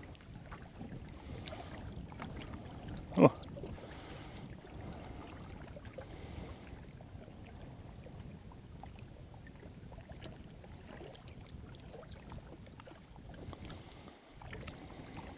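Small waves lapping faintly against a rocky shore, with light wind on the microphone and a few faint ticks. One brief loud sound about three seconds in.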